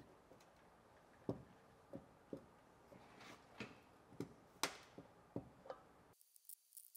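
Faint, irregular clicks and knocks from a Cox hose reel being hand-cranked to wind the pressure-washer hose onto its drum, with one sharper click a little after four and a half seconds in. The sound cuts off abruptly about six seconds in.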